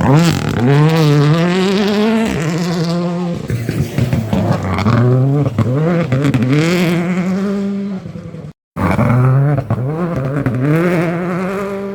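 Rally car engine accelerating hard through the gears, its pitch climbing and then dropping sharply at each upshift, several times over. The sound cuts out completely for a moment about two-thirds of the way through, then another run of rising revs and gear changes follows.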